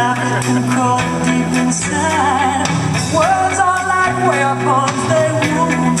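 Pop-rock song playing loudly, a woman's voice singing long, wavering held notes over bass and guitar.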